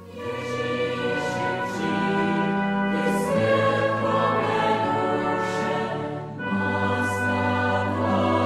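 A choir singing a slow sacred song in long held chords that change every two to three seconds.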